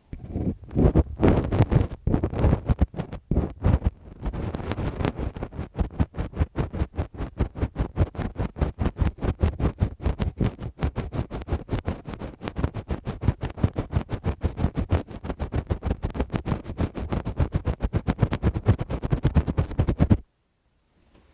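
Lace-gloved fingers rubbing and scratching directly on an ASMR microphone in fast, even strokes with a deep rumble. The strokes stop abruptly near the end.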